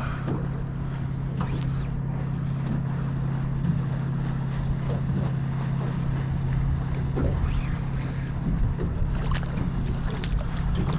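A steady low motor hum over water lap. A hooked red snapper is brought up and splashes at the surface near the end.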